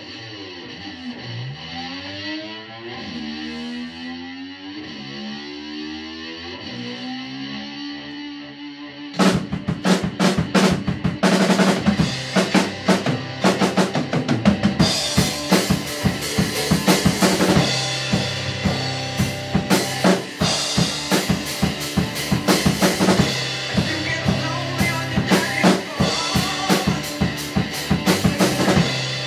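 Slide guitar gliding up and down in pitch, imitating a motor scooter, then about nine seconds in a rock drum kit comes in loud with the band, busy snare and bass drum strokes over the guitar.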